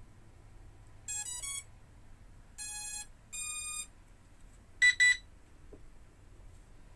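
Electronic beeper signals from a device. A quick run of short stepped tones comes about a second in, then two longer steady tones, then two short, louder beeps near the end.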